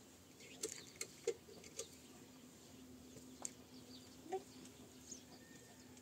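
Small wood fire crackling faintly, with half a dozen scattered single pops over a low steady hum.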